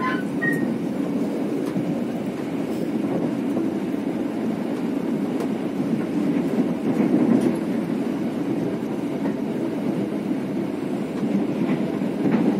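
Steady rumble of a passenger train running, heard from inside the Malioboro Express's executive coach, with faint clicks from the wheels over the track.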